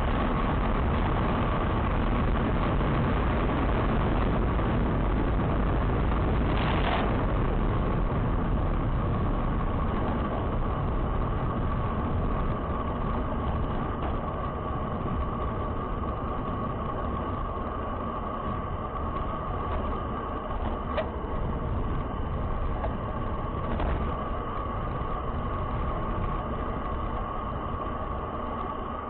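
Steady engine and road noise of a vehicle being driven, heard from on board, with a constant hum near the middle of the range.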